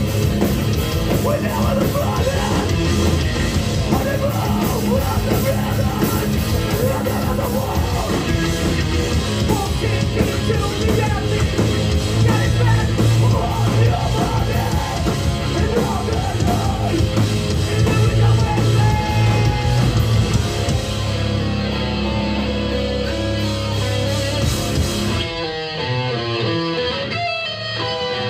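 Hardcore punk band playing live, with distorted electric guitars, bass, drums and vocals. The sound thins out for a few seconds near the end.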